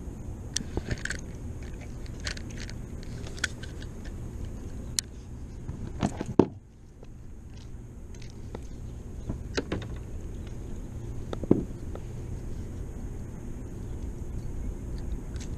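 Scattered clicks and knocks of metal pliers and fishing tackle being handled against a plastic kayak while a small bass is unhooked, over a steady low rumble. The loudest knock comes about six seconds in.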